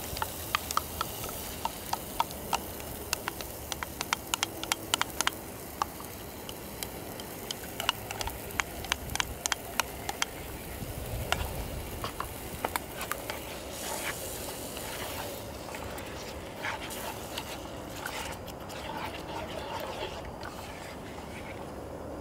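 Food frying in a small pan: oil crackling and spattering with many sharp, irregular pops over a sizzle. The pops thin out after about ten seconds into a softer hiss.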